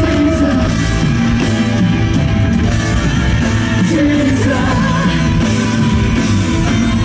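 Live rock band with a male lead vocal sung into a microphone over drums and band, played loud through a concert sound system.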